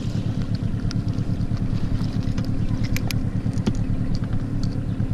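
Small boat outboard motor running steadily on an inflatable dinghy, a low even drone, with a few light clicks about three seconds in.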